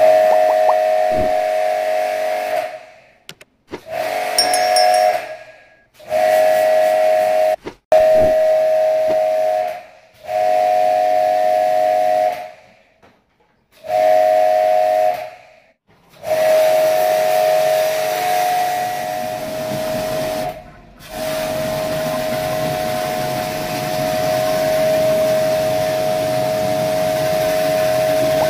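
Handheld electric pressure-washer spray gun jetting water onto a split air conditioner's coils: a steady high motor whine with the hiss of the spray. It starts and stops in short bursts of one to four seconds as the trigger is pulled and released, then runs unbroken for about the last seven seconds.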